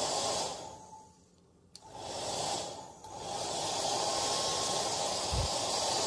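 Handheld hair dryer blowing, a steady rush of air with a faint whine under it. About a second in the sound falls away almost to nothing, comes back after a sharp click, dips once more briefly, then runs steadily.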